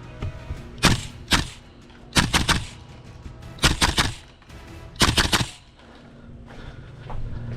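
Tokyo Marui MK18 gas blowback airsoft rifle firing: two single shots about a second in, then three short, rapid bursts of three or four shots each.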